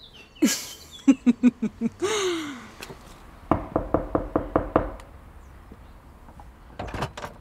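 Knuckles rapping quickly on the glass pane of a front door, a rapid run of about nine knocks lasting just over a second, about halfway through.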